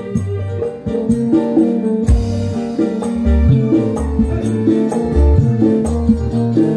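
Live dangdut band playing instrumental music through a loud PA: drum kit and hand drums keeping a steady beat over deep held bass notes and sustained melody tones, with a cymbal crash about two seconds in.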